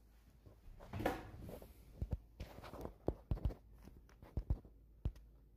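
A phone being handled close to its microphone: a brushing rustle about a second in, then a series of short, light knocks and taps.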